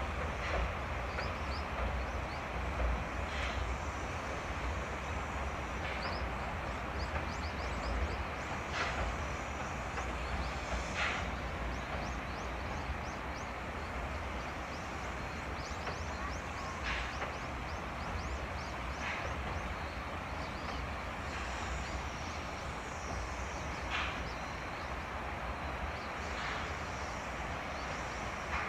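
Steam-hauled train moving slowly or standing close by: a steady low rumble, broken every few seconds by a short sharp burst.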